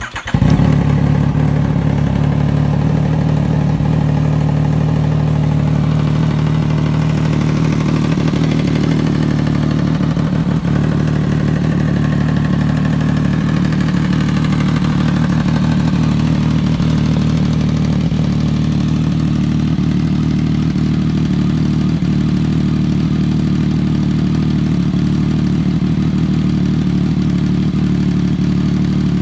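2020 Yamaha MT-09's 847 cc three-cylinder engine, through an aftermarket titanium exhaust, started on the button: it catches at once and settles into a steady idle.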